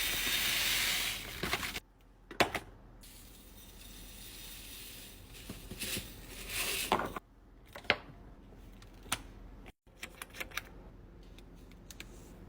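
Panko breadcrumbs poured into a storage container, a loud rustling pour for about the first second and a half, followed by scattered sharp clicks and taps of the container being handled, with another short rustle around six to seven seconds in.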